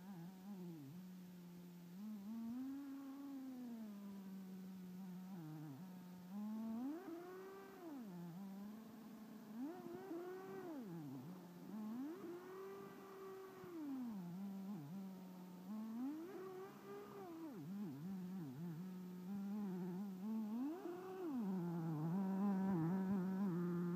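Redcat Tornado S30 nitro RC buggy's engine revving up and dropping back to a steady idle note, about half a dozen throttle bursts in a row, getting louder near the end as the buggy comes close.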